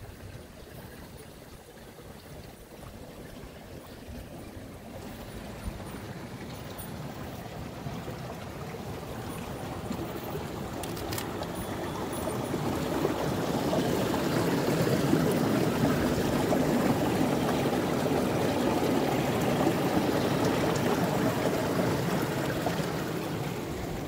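Glacial snowmelt stream running unseen beneath a boulder field, a steady rushing water sound. It grows louder over about the first fourteen seconds, then holds.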